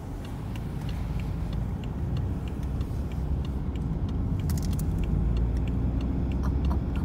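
Car driving, heard from inside the cabin: a steady low rumble of engine and tyre noise that slowly grows louder. Light ticks sound about twice a second throughout, with a brief clicking rattle about four and a half seconds in.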